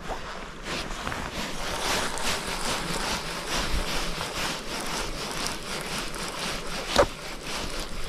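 Steady rush of moving water at the shore, with a single sharp knock about seven seconds in.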